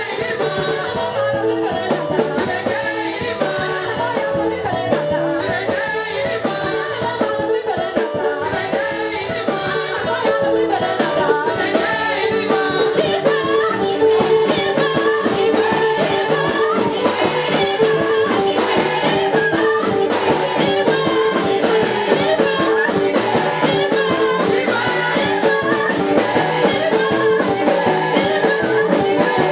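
Church worship music: singing over instruments with a steady percussive beat, getting louder about ten seconds in.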